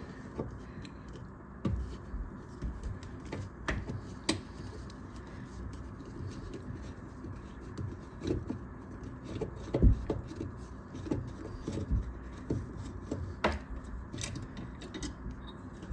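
Small metal clicks and knocks of a ground screw being unscrewed and wires being handled in a dishwasher's electrical junction box, with a sharper knock about ten seconds in.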